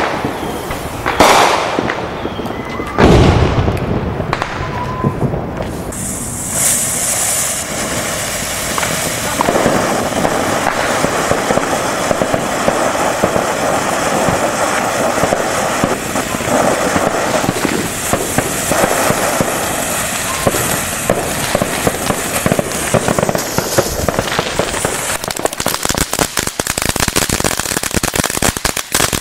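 Consumer fireworks going off: loud bangs about one and three seconds in, then a long continuous crackle of many small rapid pops, turning into sharper, quicker pops near the end.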